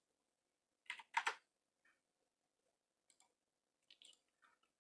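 Near silence with a few faint computer mouse clicks, a quick cluster of them about a second in and fainter single ticks later.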